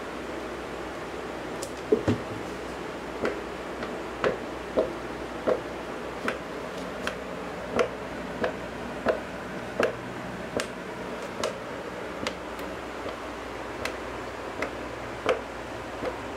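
Light, irregular taps of a cat against a hardwood floor, roughly one or two a second, over a steady hiss.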